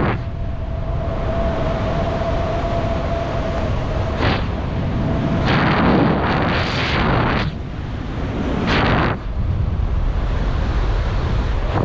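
Wind rushing over the camera's microphone in canopy flight under an open parachute, swelling into louder gusts several times. A thin steady whistle runs under it and stops about five seconds in.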